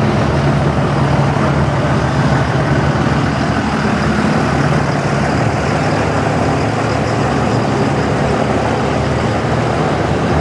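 Several diesel pickup trucks idling, a steady low engine sound.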